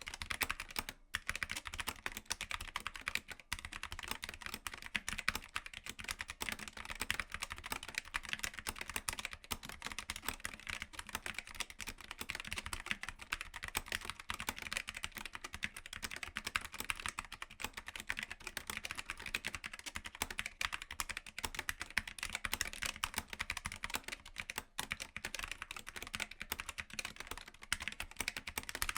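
Fast, continuous typing on a mechanical keyboard with linear switches: a dense run of keystroke clacks with no let-up.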